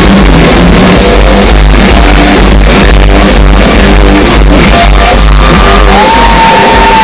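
Loud live concert music with heavy bass and a crowd shouting along; near the end one long note is held for about a second before it falls away.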